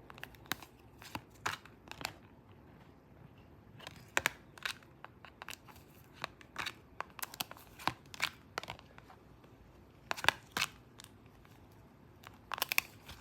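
Hands handling an oracle card deck and its packaging: irregular short taps, clicks and rustles, some in quick little clusters.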